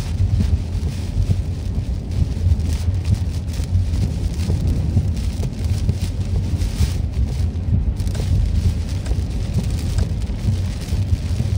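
Heavy storm rain on a car driving along a wet road, heard from inside the car as a steady wash of noise over a deep rumble.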